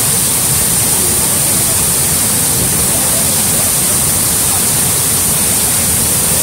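Water pouring over a reservoir spillway in a wide cascade: a loud, steady rush of falling water.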